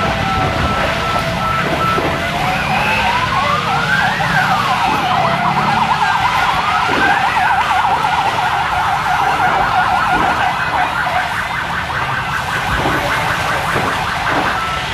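Emergency-vehicle siren wailing, sliding up and down in pitch twice, then switching to a fast yelp warble about halfway through, over a steady background noise.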